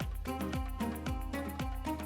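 Instrumental background music with a steady beat, bass and short melodic notes.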